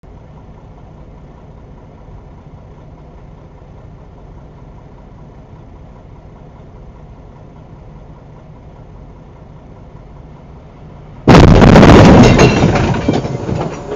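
Steady low background noise, then about eleven seconds in a sudden, very loud crash as a runaway semi-truck slams into the parked truck, heard from inside the struck cab. The crunching impact overloads the recording and dies away over a couple of seconds.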